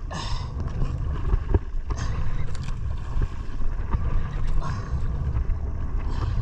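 Steady low rumble of wind and water around a small fishing boat at sea, with a few brief hissing noises.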